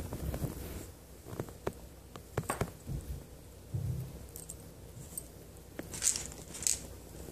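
Handling sounds of stringing beads by hand: scattered light clicks and taps of glass and metal beads knocking together on a braiding cord, with soft rubbing, and two short hissing brushes about six seconds in.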